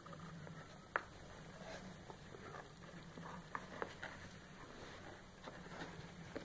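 Faint rustling and soft scattered ticks as a hand handles Maine Coon kittens shifting about on a blanket in a cardboard box, with one sharper click about a second in.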